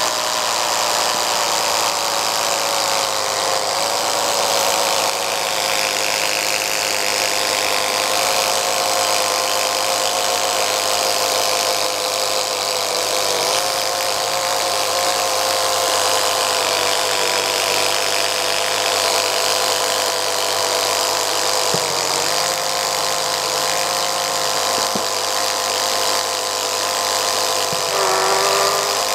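Motor-driven Lego Technic inline-four engine model running fast: a small electric motor's steady whine with the plastic pistons and crankshaft whirring. The pitch dips briefly a few times and rises near the end.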